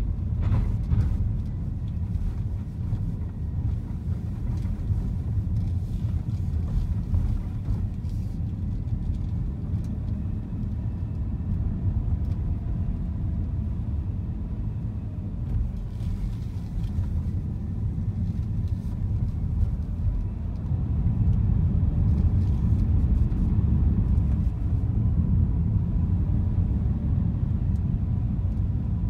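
Steady low rumble of engine and road noise heard from inside a moving car, growing louder about two-thirds of the way through.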